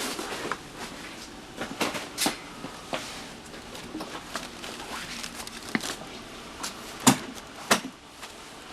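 Irregular knocks, clatters and rustles of goods being picked up and handled in a market shop, with two sharper knocks near the end.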